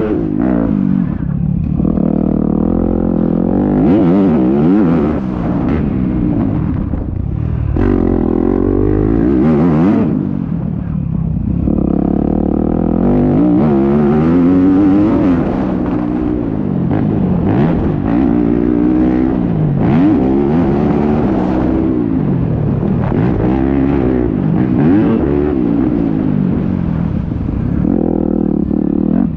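Yamaha YZ250F motocross bike's 250 cc four-stroke single-cylinder engine being ridden hard, revving up and dropping off again and again as the throttle is opened and closed.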